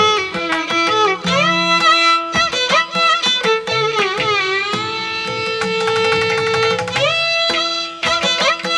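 Instrumental music: a melody on a bowed string instrument that slides and ornaments between notes over a held lower note.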